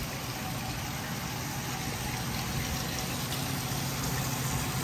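Steady rush of running water in a concrete fish-holding tank, over a low steady hum.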